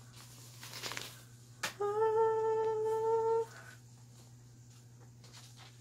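A woman's voice hums one steady, level note for about a second and a half, preceded by a brief rustle of the tote bag's fabric being unfolded.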